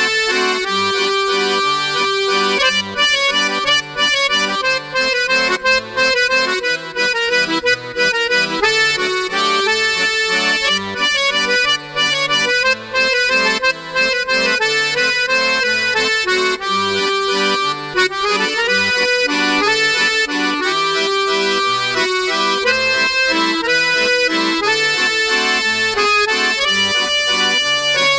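Instrumental background music with held melodic notes, playing without a break.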